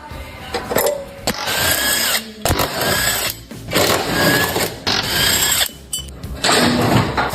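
A power tool, such as an electric ratchet or drill, whirring in about six bursts of roughly a second each, with short pauses between them.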